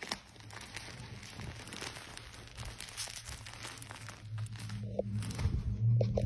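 Crinkling of a plastic wrapper being fiddled with inside a jeans pocket, a steady crackle that grows louder near the end.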